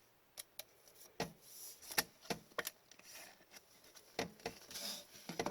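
Irregular light clicks and taps, with a couple of brief soft rustles, from things being handled on a desk.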